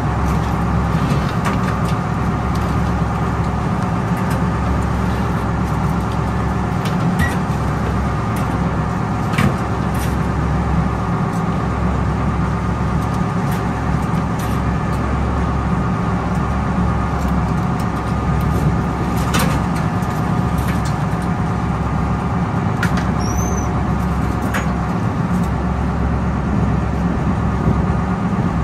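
A crab workboat's engine running steadily under way, with a few sharp clicks and clanks from wire crab pots being handled.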